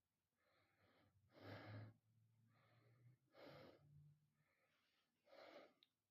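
Faint, soft breathing close to the microphone: three quiet breaths about two seconds apart.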